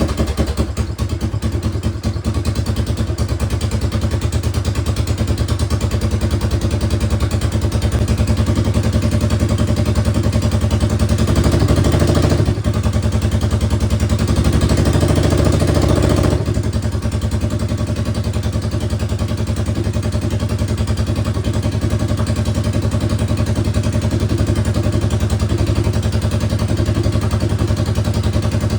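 Suzuki DR650 single-cylinder engine, freshly rebuilt with a 790 big bore kit, running on its first start-up at a steady idle. The revs are held a little higher for a few seconds around the middle, with a short dip partway through, before settling back to idle.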